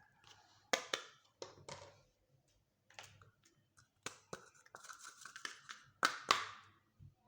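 Hands unpacking small plastic toy pieces and packaging: a series of sharp clicks and short crinkly rustles. The loudest pair comes near the end.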